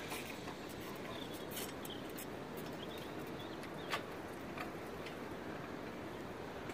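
Quiet outdoor background noise, with faint high chirps and a few soft clicks.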